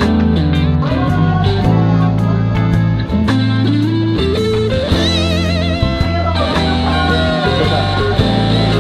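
Background music: a blues-rock track led by electric guitar, with bending, wavering lead notes over a steady bass.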